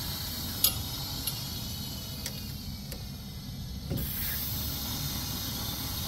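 Nitrogen hissing faintly as it is blown through a heat pump's refrigerant line from the evaporator coil port, to purge a restriction. The hiss breaks off for about a second and a half midway and then resumes, with a couple of light clicks over a steady low rumble.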